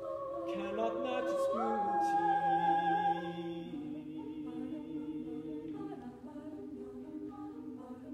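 Mixed chamber choir singing a cappella. A solo voice with vibrato steps up to a held high note over the choir's sustained chords, and a little under four seconds in the choir moves to a softer, lower held chord.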